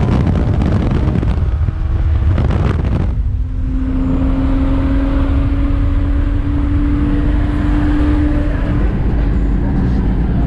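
Car under hard acceleration at speed, with heavy wind and road rush. From about three seconds in, a steady engine note climbs slowly in pitch.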